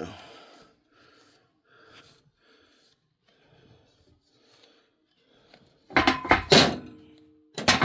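Metal parts and tools clanking against the engine. Light scattered knocks come first, then a loud cluster of clanks about six seconds in that rings briefly, and another loud clank near the end.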